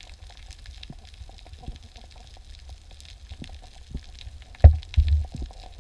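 Underwater ambience: a steady crackle of small clicks over a low rumble, with a few loud low thumps close together near the end.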